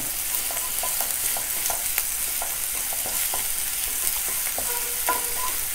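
Chopped onion, garlic, ginger and green chilli sizzling in hot oil in a non-stick kadhai over high heat, stirred briskly with a wooden spatula that scrapes and taps against the pan in short clicks over a steady hiss.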